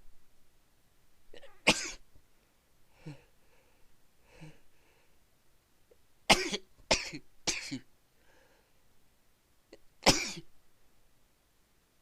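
A person in a sneezing fit, sneezing five times: once about two seconds in, three times in quick succession around the middle, and once near the end. Quieter breaths come between the sneezes.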